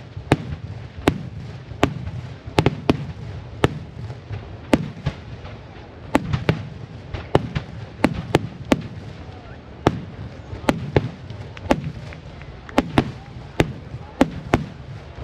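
A large aerial fireworks barrage: shells bursting in rapid, irregular succession, sharp bangs two or three a second over a continuous low rumble.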